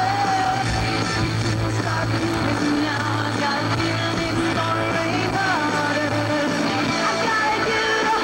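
Rock song: a woman singing lead over electric guitar.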